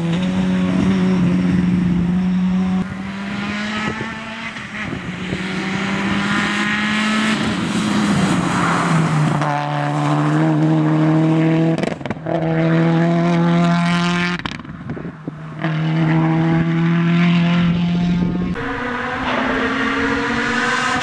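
Rally cars driven hard on a tarmac stage, one after another, their engines held at high revs with gear changes and brief lifts off the throttle.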